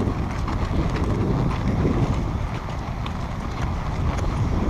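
Horse hooves clip-clopping in an uneven series of light knocks under steady wind noise on the microphone.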